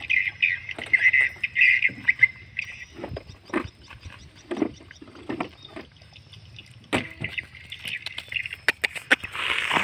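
A dog eating rice from a plastic plate, with scattered clicks of its mouth against the food and plate. Birds chirp in the background, and there is a short rustle near the end.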